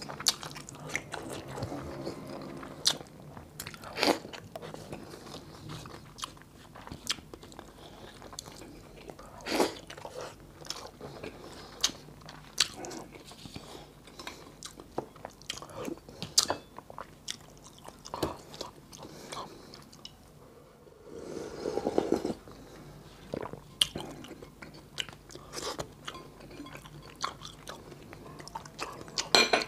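Close-up eating sounds: biting, crunching and wet chewing of food eaten by hand, in many short sharp clicks. About two-thirds of the way in there is a longer, louder stretch of about two seconds.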